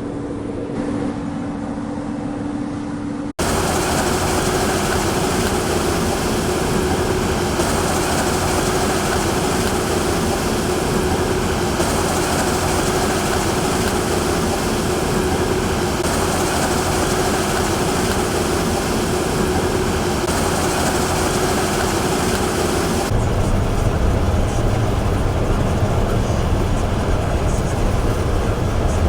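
Combine harvester running steadily at work, a constant mechanical noise with a steady hum. The sound jumps abruptly twice as the footage cuts, the last part carrying a deeper rumble.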